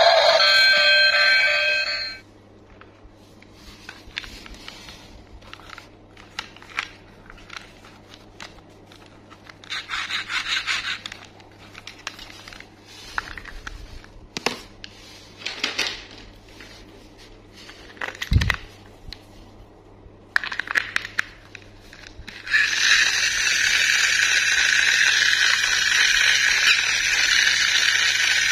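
Plastic toy train being handled: clicks, scrapes and rattles of its plastic body, wheels and battery compartment, after music that stops about two seconds in. Some twenty seconds in, a loud steady hiss starts.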